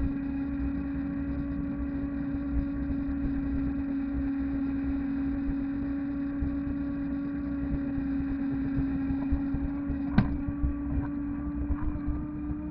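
Electric fat bike with a 250 W, 48 V hub motor cruising on asphalt: a steady hum over a low rumble of the fat tyres and wind on the microphone. A sharp click about ten seconds in.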